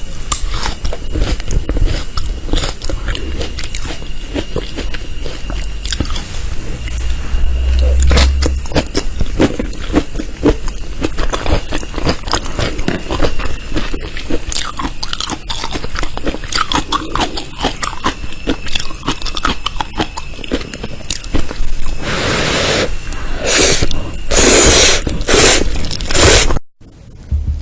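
Loud, crunchy chewing and biting: dense runs of sharp crunches, with a few louder bursts near the end before the sound cuts off abruptly.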